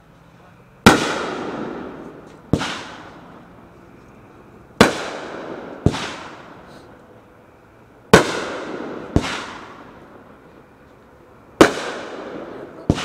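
RGS Fireworks A+ 500-gram firework cake firing shots into the air: eight sharp bangs coming in pairs about a second apart, a new pair every three to four seconds, each ringing out in a long echo.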